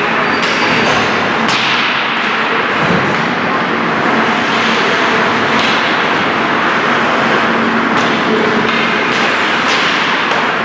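Ice hockey game in an arena: a steady, loud, echoing din of play and voices, broken by a few sharp knocks of sticks and puck every second or two, over a steady low hum.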